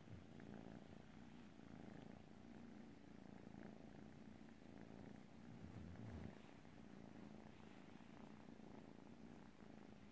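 A kitten purring steadily and faintly while being petted, a low, even purr.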